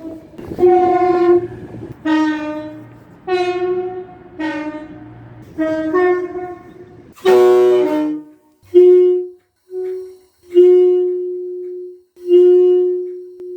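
Train horn sounding about five short blasts in a row, each about a second long, over a low engine rumble. After a cut comes one harsher, fuller blast. Then a clearer single-pitched train horn gives four toots, the last two longer.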